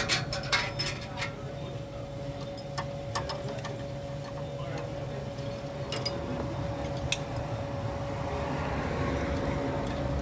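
Metal tools clinking and clicking against each other and the car's suspension parts, a quick run of clinks at first and a few scattered ones later, over a steady faint hum.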